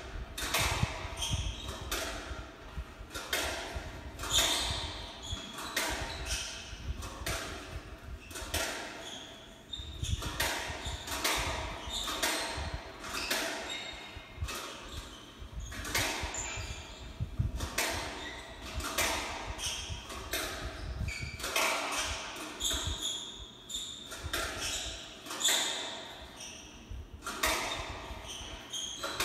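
Squash rally in doubles play: the ball cracks off rackets and the court walls in sharp hits about once a second. Short high squeaks from shoes on the hardwood floor come between the hits, all heard through a television speaker.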